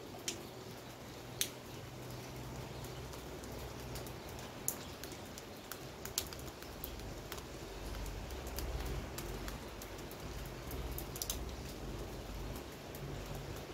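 Rain falling, heard from a window: a steady even hiss with scattered sharp drip clicks, and a low rumble underneath that grows a little in the second half.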